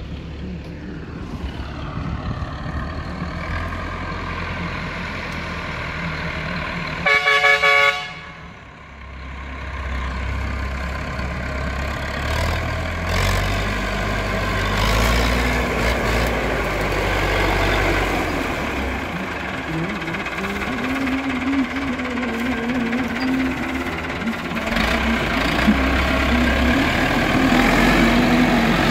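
Tractor diesel engine running steadily while harvesting corn. A horn sounds once for about a second around seven seconds in. Toward the end the IMT 577 DV tractor and its trailed SIP Tornado 80 corn picker run at work, slightly louder.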